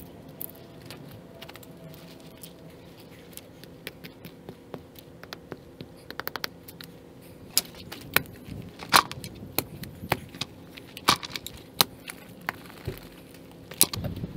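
Digging in rocky ground at a fence post's base: landscape rocks clinking as they are moved and a steel spade scraping and striking stones, in irregular sharp clacks over a faint steady hum, busier and louder in the second half.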